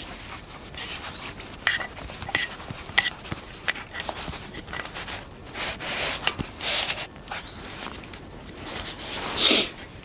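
Camping kit being handled and unpacked: scattered light clicks and knocks with rustling, and two louder rustling swishes about six and nine seconds in.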